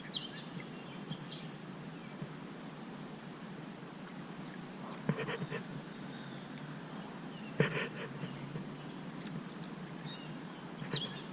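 Outdoor ambience: a steady background hiss with faint bird chirps. Two short, louder sounds come about five and eight seconds in.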